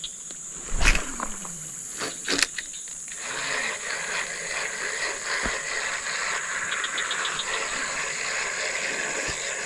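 Steady high-pitched insect drone from the swamp. Two sharp knocks come in the first few seconds, and from about three seconds in an even rushing noise joins it and holds.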